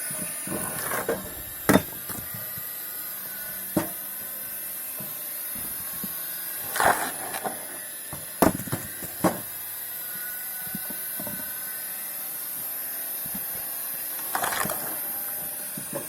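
Firewood being split: several sharp cracks and knocks, and three longer creaking, splintering spells as logs break apart, over a steady high whine.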